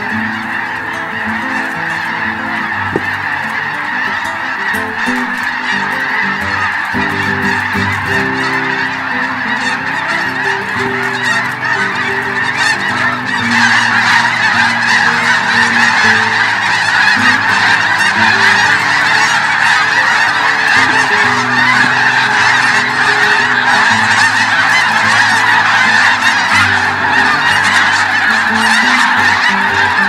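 A huge mixed flock of snow geese and Ross's geese calling together: a dense, unbroken chorus of honking that swells louder about halfway through.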